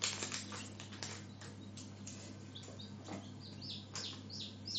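Newly hatched chicken chicks peeping, high falling peeps that come a few times a second in the second half. Before that, a packet rustles as it is cut open with scissors.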